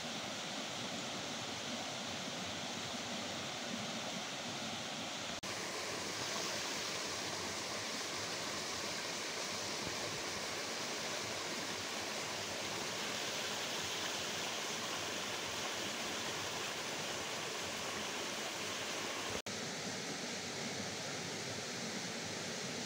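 Steady rush of running storm runoff water, an even hiss-like wash with no pauses, changing abruptly twice where the recording cuts.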